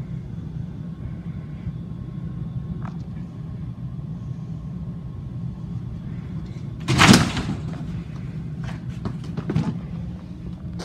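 A steady low rumble, then one loud clattering bang about seven seconds in as a dunk hits an over-the-door mini basketball hoop, followed by a few lighter knocks.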